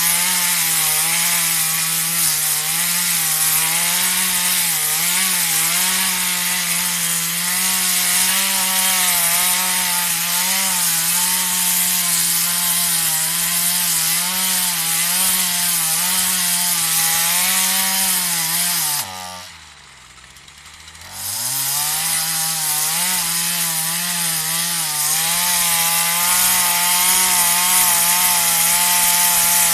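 Partner 340S two-stroke chainsaw running at high revs, its pitch wavering slightly. About two-thirds of the way through it drops off sharply toward idle for a couple of seconds, then revs back up.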